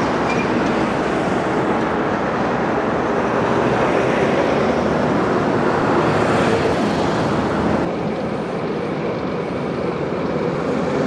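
Diesel locomotive engine running steadily with the rumble of a freight train of tank wagons. About eight seconds in, the sound drops a little and becomes the steady hum of a KD55 diesel-hydraulic locomotive running while standing close by.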